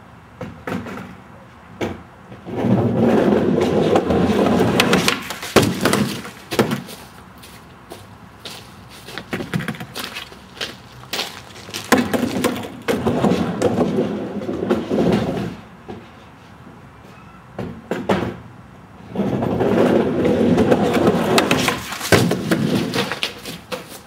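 Skateboard wheels rolling across a wooden deck in three runs of a few seconds each, with sharp clacks of the board hitting the wood in between.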